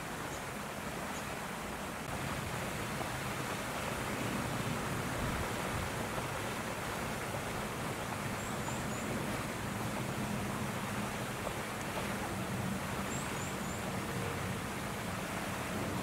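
Steady rushing outdoor background noise with a low rumble underneath. A few faint, high chirps come about halfway through and again later on.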